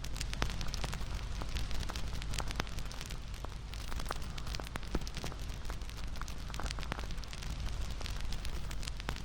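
Wood bonfire crackling: many irregular sharp snaps and pops over a steady low rumble of burning.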